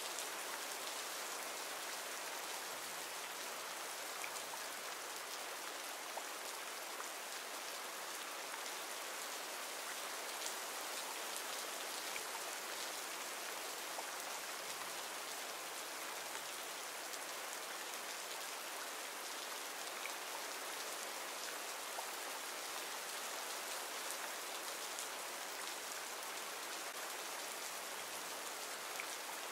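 Steady rain ambience: an even hiss of rain falling on a surface, with faint scattered drop ticks.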